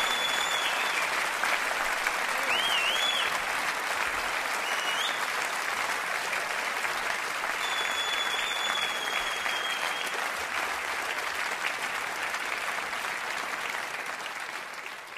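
Concert audience applauding after a live song, with a few high whistles; the applause fades out near the end.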